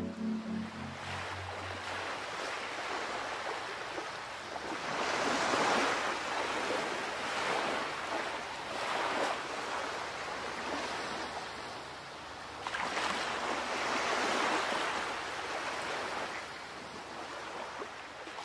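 Sea waves washing in: a steady rushing hiss that swells and falls back every few seconds, loudest about five seconds in and again around thirteen to fifteen seconds in.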